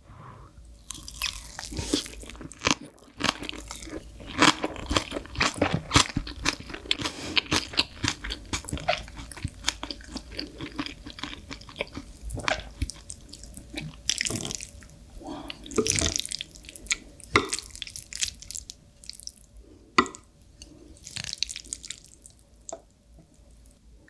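Close-miked chewing of crunchy green onion kimchi and black bean noodles: a dense run of crisp, wet crunching clicks at first, then sparser chewing bursts in the second half.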